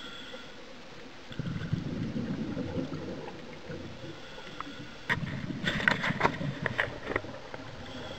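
Scuba diver's regulator breathing heard underwater through the camera housing: a rushing surge of air about a second in, then a louder gurgling rush of exhaled bubbles with sharp crackles from about five to seven seconds in.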